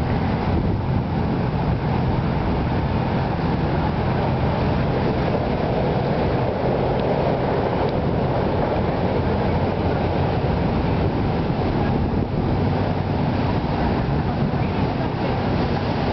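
Motorboat engine running steadily, a low droning hum, with water and wind noise over it.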